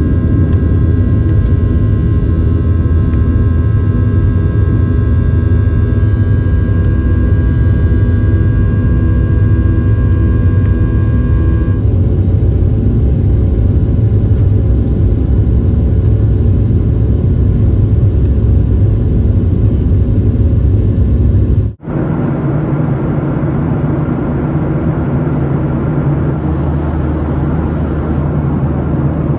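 Boeing 737-700's CFM56 jet engines running, a loud steady rumble with a whine of fan tones over it. The whine fades out about twelve seconds in. An abrupt cut about twenty-two seconds in leads to a steady rumble without the whine.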